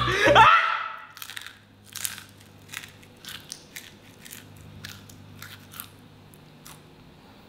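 A person chewing a whole edible beetle in the mouth: a string of short, crisp crunches at an uneven pace.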